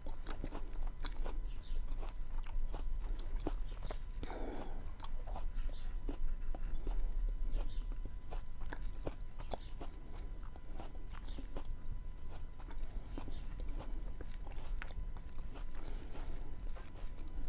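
Close-miked chewing of beans with onion and tomato: a steady run of wet mouth clicks and smacks, with a longer, noisier stretch about four seconds in.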